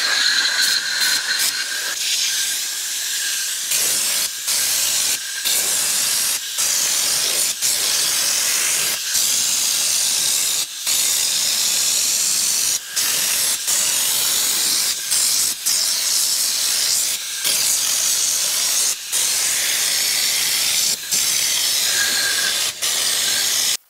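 Compressed-air stone chip (schutz) gun spraying solvent-based stone chip onto a van's sill: a loud, steady hiss of air and coating, broken by short gaps every second or two as the trigger is let off between passes. It cuts off suddenly at the end.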